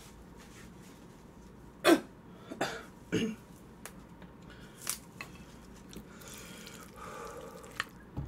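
A woman coughs three times in quick succession about two seconds in. Later come a few small clicks and a faint rustling as leafy greens are handled for a wrap.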